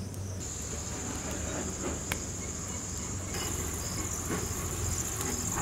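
An insect's steady, high-pitched trill, starting about half a second in and holding unbroken, with a few faint clicks underneath.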